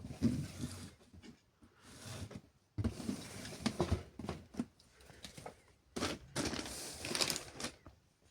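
Irregular clicks, knocks and rustling from small plastic toy washing machines being handled.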